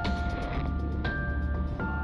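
Background music: held notes over a steady bass, with new notes coming in about a second in and again near the end.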